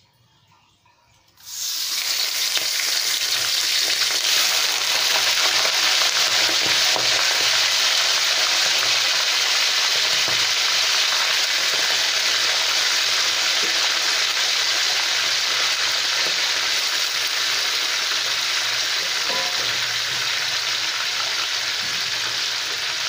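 Raw chicken pieces hitting hot mustard oil in a steel kadhai and sizzling loudly. The frying starts suddenly about a second and a half in and then holds steady.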